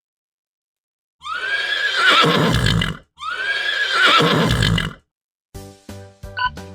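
A horse whinnying twice, each call about two seconds long, rising and then falling in pitch. Light background music starts near the end.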